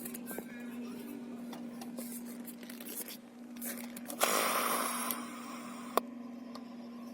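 Hyundai Solaris fuel tank hissing as the filler is opened: one loud rush of air about a second long some four seconds in, then a sharp click near six seconds, over a steady low hum. The owner puts this snoring of the tank down to a frozen evaporative (absorber) valve.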